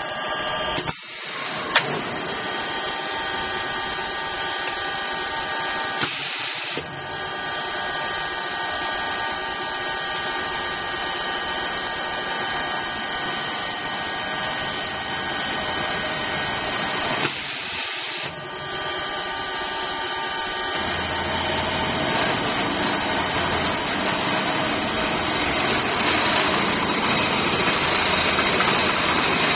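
CNC drilling and cutting machine running: a steady machine whine made of several constant tones over a noisy hiss, with brief changes about 1, 6 and 18 seconds in. About 21 seconds in a deeper rumble joins and the sound grows louder toward the end.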